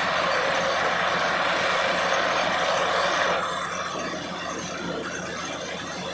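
Borewell drilling rig running: a loud, steady rush of noise over a constant low hum, easing off suddenly a little over three seconds in.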